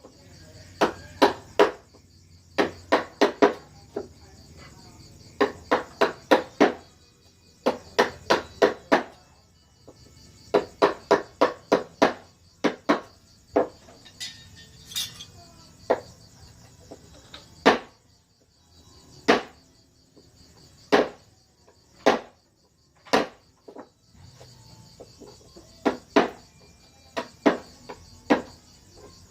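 Wooden mallet striking a carving chisel into wood: sharp knocks in quick runs of three to six, about three or four a second, with short pauses, becoming single spaced strokes past the middle. Crickets chirr steadily throughout.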